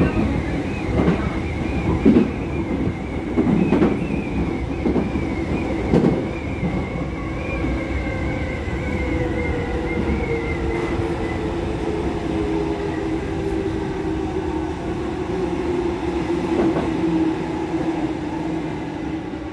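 Inside an electric commuter train: the motor whine slowly falls in pitch as the train slows for a station. In the first six seconds the wheels clack a few times over rail joints.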